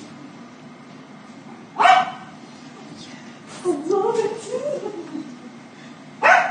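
A dog barking: one loud, short bark about two seconds in and another near the end, with a lower wavering sound between them.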